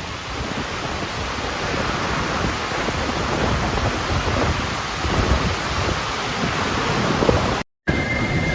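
Storm wind and heavy rain: a steady rushing noise that breaks off for a moment near the end.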